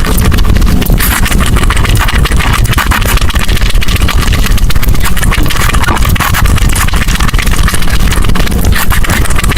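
Close-miked eating sounds: continuous chewing and crunching of food, with dense, irregular crackles over a heavy low rumble.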